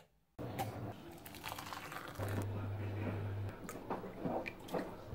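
Electric kettle switched on with a click, then heating: crackling from the water and a low steady hum from the element. Milk is poured into a mug of tea about four seconds in.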